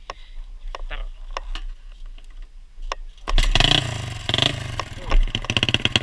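Dirt bike with a Yamaha Jupiter single-cylinder four-stroke engine starting about three seconds in, revved twice, then running with a fast pulsing exhaust beat. A few light clicks come before it.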